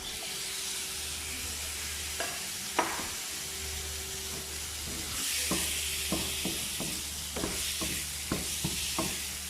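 Shrimp sizzling in a pan of hot butter and curry spices, the sizzle starting suddenly and growing louder about five seconds in. A spatula scrapes and taps the pan, with quick strokes two or three a second in the second half as the shrimp is stirred.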